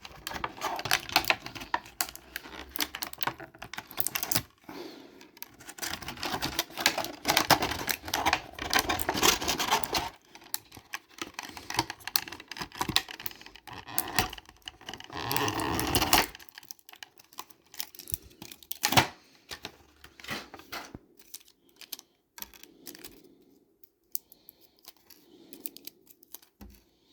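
Stiff plastic action-figure packaging tray crackling and clicking as small accessories are pried out of it, thick and rapid for about the first sixteen seconds, then thinning to scattered clicks and light handling.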